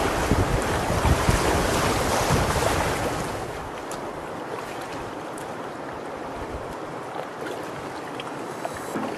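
Rushing river water in whitewater, with wind buffeting the microphone. About three and a half seconds in, the wind rumble drops away, leaving a quieter, steady rush of water.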